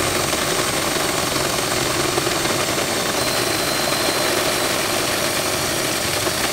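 Cordless drill boring a hole through the sheet-metal door sill of a truck under light pressure, giving a steady, continuous grinding of bit on steel.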